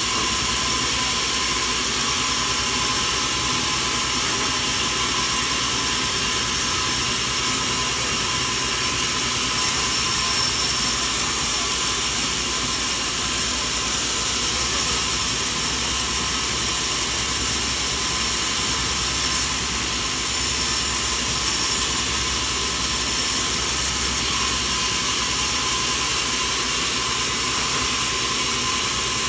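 Sawmill machinery running steadily, a constant mechanical hiss and hum with no break or change in level.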